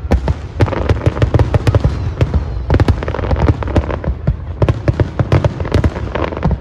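Fireworks going off in rapid succession: many sharp bangs and crackles, several a second, over deep low booms.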